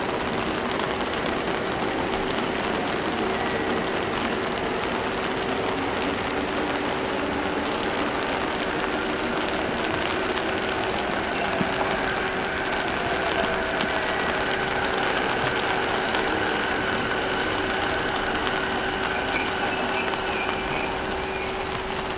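Steady rain falling around a railway station, with a constant hum and the faint electric whine of Keihin-Tohoku Line commuter trains' motors: one whine rises near the start, and others come and go around the middle as trains move.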